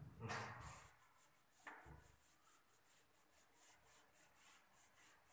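Whiteboard duster wiping marker off a whiteboard in quick back-and-forth strokes: a faint rhythmic scrubbing, about four strokes a second, with two louder strokes in the first two seconds.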